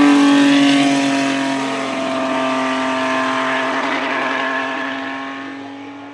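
Renault RS10 Formula 1 car's 1.5-litre twin-turbo Gordini-Renault V6 driving past and away. Its engine note dips slightly in pitch at first, then holds steady as it fades into the distance.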